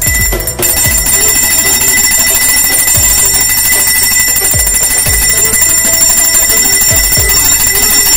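A small handbell shaken without pause, its ringing steady and dense, over background music with a low beat.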